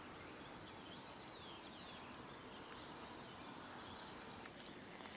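Quiet steady background hiss of the open air, with faint, short high-pitched chirps in the first few seconds.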